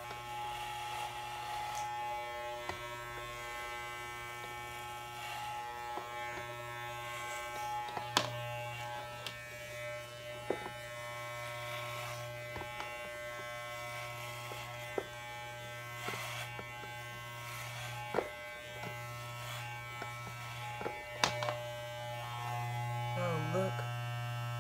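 Corded electric hair clippers buzzing steadily as they cut through thick natural hair during a head shave, with a few sharp clicks along the way.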